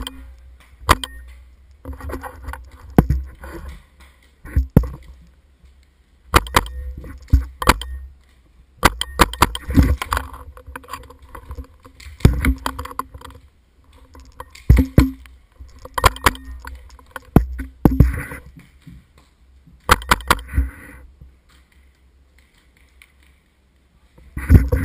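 Paintball markers firing in quick bursts of sharp pops, a burst every second or two, with a few seconds' lull near the end.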